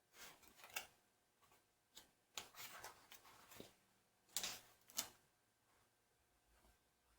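Faint rustling of papers and small items being handled, with a few sharp clicks, in three short spells about two seconds apart.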